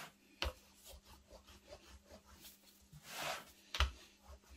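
Plastic rolling pin rolling out pastry dough on a plastic chopping board: a soft rubbing swish about three seconds in, with a sharp knock about half a second in and another just before the end.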